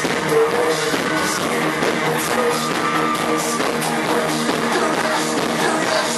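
Live pop-rock band playing, with electric guitar and a drum kit keeping a steady beat.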